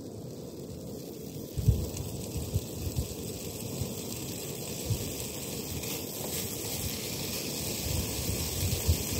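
Gas camping stove burner running steadily under a pot. From about one and a half seconds in, gusts of wind buffet the microphone in low thumps.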